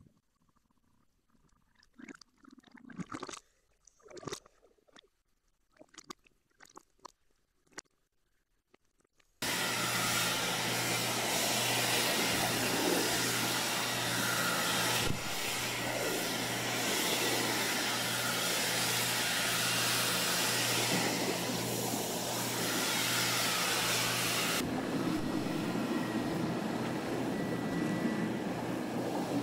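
Faint scattered underwater clicks and pops for about the first nine seconds, then an abrupt change to loud wind buffeting the microphone over open-ocean waves, with a steady low hum from a boat's engine. About 25 s in the sound changes, with less hiss and more low rumble of water washing close by.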